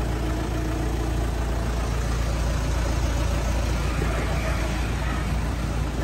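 Car engine running with a steady low rumble.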